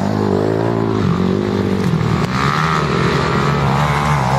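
Several motocross bike engines revving on the track at once, their pitches rising and falling and overlapping as the riders work the throttle.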